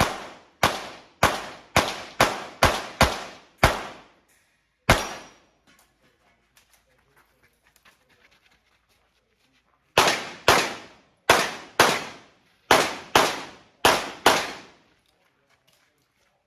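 Pistol shots fired in quick strings, roughly two a second: about eight shots, a single shot, then a pause of about five seconds with only faint clicks and rustles, then another string of about eight shots.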